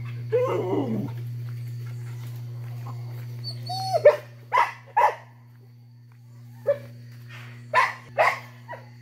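A dog barking: a few short barks about four seconds in and more near the end, over a steady low hum.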